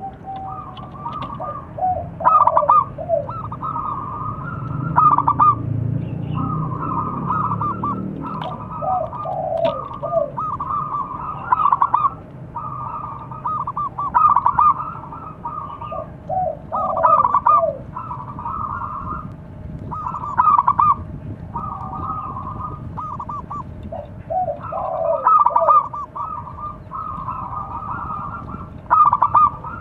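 Zebra doves cooing: repeated phrases of quick, rolling coo notes, a new phrase every few seconds, with lower notes often falling in alongside or at the end of the higher ones. This is the perkutut's calling song, used to provoke rival birds into answering.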